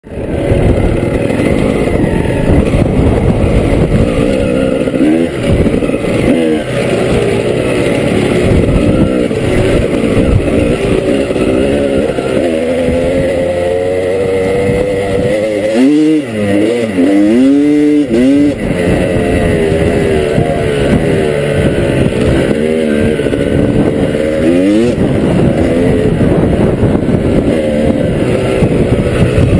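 Dirt bike engine running under way over sand, the revs rising and falling as the rider works the throttle and gears, with a few sharp drops and climbs in pitch about halfway through.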